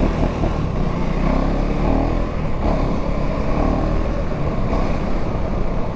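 Motorcycle engines running at a steady level while riding, with wind rushing over the microphone.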